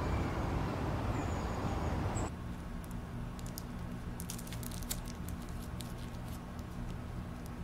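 A steady rushing noise for about two seconds, then it cuts off to a low steady room hum with a run of crisp paper rustles and flicks as the pages of a thick ring binder are leafed through.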